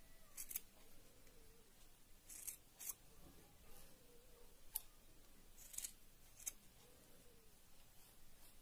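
Scissors snipping through wool yarn, trimming a pompom round into shape: about half a dozen faint, crisp snips at uneven intervals.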